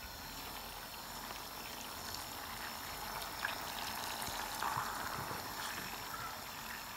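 Butter melting with sage leaves and garlic in a small steel saucepan, bubbling and foaming with a steady soft fizz and a few small pops.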